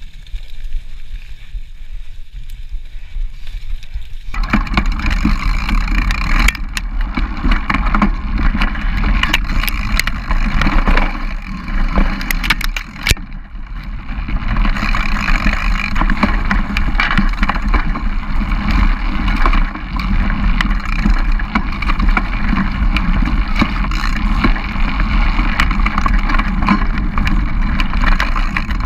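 A mountain bike ridden fast over a leaf-covered dirt trail, recorded on a camera mounted on the bike. Tyres roll over leaves, the bike rattles and clicks over bumps, and wind rumbles on the microphone. The sound jumps suddenly louder about four seconds in.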